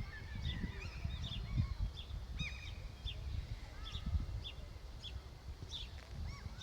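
Birds calling, a scatter of short chirps and arching call notes, over wind gusting on the microphone as a low rumble.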